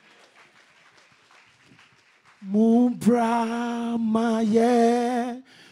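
A man's voice singing long, steadily held notes, beginning about halfway in after a couple of seconds of faint room sound.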